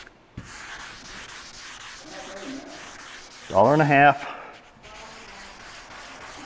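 Wet sanding by hand: fine-grit sandpaper on a block rubbed side to side over wet, freshly sprayed black single-stage paint, a steady hiss that knocks down the high spots of orange peel. A short burst of a man's voice cuts in about three and a half seconds in.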